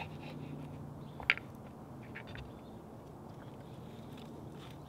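A knife slicing between the rib bones of a smoked rack of lamb on a bamboo cutting board: quiet cutting with one sharp click about a second in and a few faint ticks, over a low steady hum.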